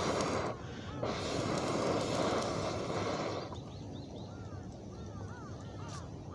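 Breath blown hard through a metal fire-blowing pipe: a rushing hiss, broken by a short pause and then held for about two and a half seconds. After the blowing stops, small birds chirp over and over with short rising-and-falling calls.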